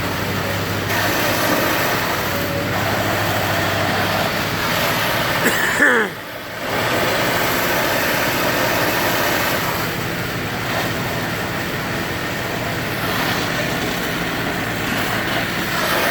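Heavy demolition equipment's engine running steadily under a wash of outdoor machine noise. About six seconds in there is a short falling squeal and a brief drop in level.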